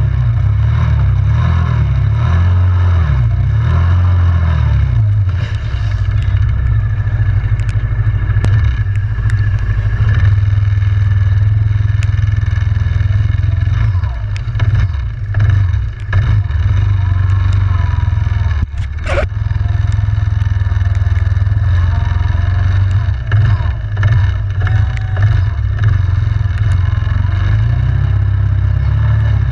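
Yamaha Grizzly 700 ATV's single-cylinder engine running under way, its revs rising and falling. Brief dips and a few sharp knocks come in the middle, the loudest about two-thirds of the way through.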